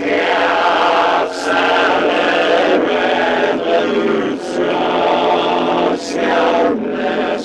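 Voices singing together in a choir-like chant, holding long sustained notes, with brief hissing consonants about a second and a half in and again around four and a half and six seconds.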